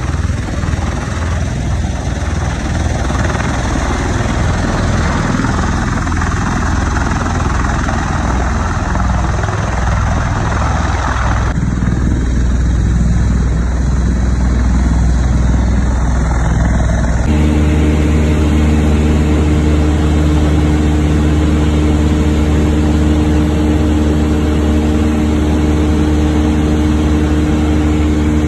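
V-22 Osprey tiltrotor running its rotors on the runway, a loud noise with a pulsing low beat. About 17 seconds in it cuts to the steady drone of a Cessna 152's four-cylinder Lycoming engine and propeller in cruise, heard inside the cabin.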